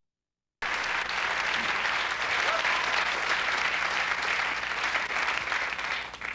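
Audience applauding, starting abruptly about half a second in and dying away near the end.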